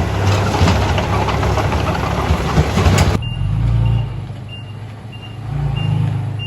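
Heavy diesel machinery running under a dense crunching and grinding of stone being moved, which stops abruptly about three seconds in. Then a reversing alarm beeps steadily, about three beeps every two seconds, over the low rumble of a diesel engine that swells and fades.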